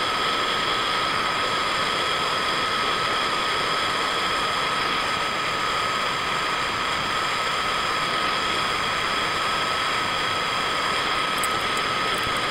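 Gas torch flame burning steadily with a loud, even hiss, a faint whistling tone held within it.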